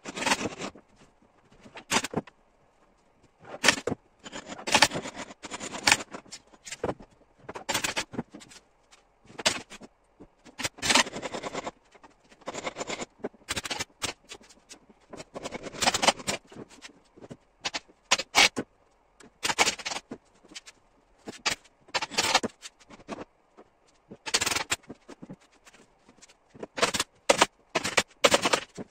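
Pneumatic upholstery staple gun firing repeatedly in irregular runs of sharp shots, stapling upholstery to a wooden chair frame.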